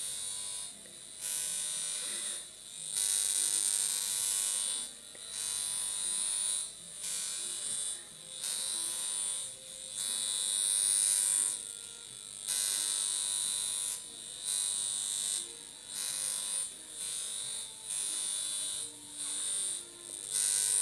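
Darsonval high-frequency electrotherapy device at full power, its glass comb electrode drawn through the hair: a high-pitched electric buzz from the discharge into the scalp. It comes in stretches of one to two seconds with short breaks between.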